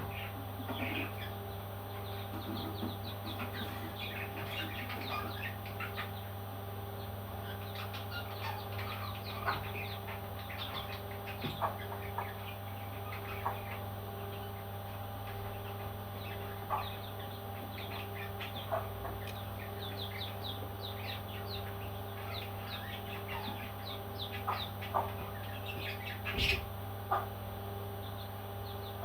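Baby parrots chirping in many short, quick calls, over a steady low hum, with a louder knock near the end.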